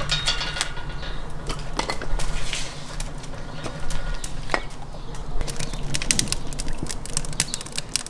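Scattered knocks and clunks of firewood and a bottle being handled at a cast-iron kazan stove, a few separate strikes over a steady low hum.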